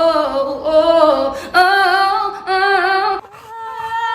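A high voice singing a melody in held notes that step between pitches, in short phrases with brief breaks, ending on a longer held note.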